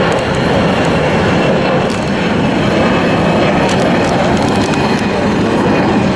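Jet airliner engines heard from the ground at an airport: a loud, steady rumble with a thin high whine above it.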